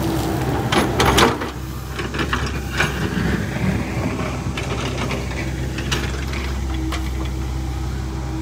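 Excavator engine running steadily while its bucket scrapes and clanks through dirt and gravel; the loudest clatter comes about a second in, with lighter knocks after.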